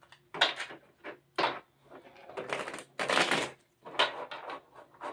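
Tarot de Marseille cards being taken from a cloth pouch and shuffled by hand: a string of short, irregular rustling strokes.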